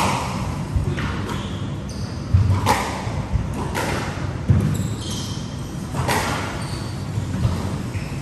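Squash rally: the ball cracking off rackets and the walls every second or two, echoing in the court, with short shoe squeaks on the wooden floor between shots.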